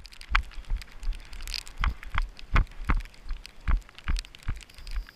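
Footsteps knocking on a wet wooden boardwalk, about two a second and uneven, over a light patter of rain.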